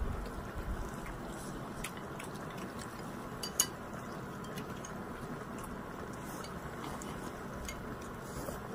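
Someone eating noodles from a cup: quiet eating sounds with faint utensil clicks against the cup, and one sharper clink about three and a half seconds in, over a steady low background hiss.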